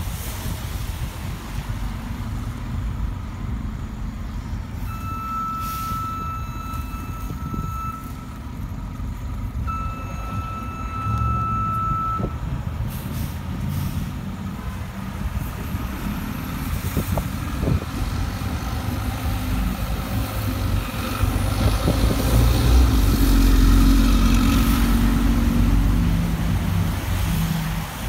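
Orion VII CNG transit bus with its engine running. Two long steady electronic warning tones sound about five and ten seconds in, followed by a short air hiss. Later the engine rumble builds to its loudest as the bus pulls away.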